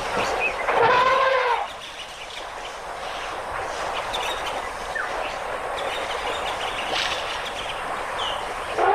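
An elephant trumpeting once, a loud brassy call about a second long that rises and falls in pitch, followed by steady outdoor background noise with a few faint bird chirps.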